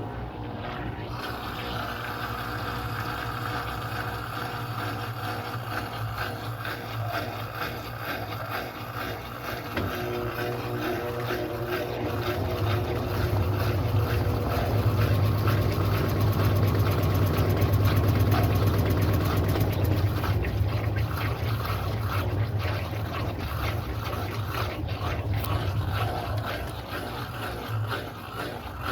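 Electrolux Turbo Economia LTD06 top-loading washing machine running, a steady low motor hum that swells louder toward the middle and then eases off again.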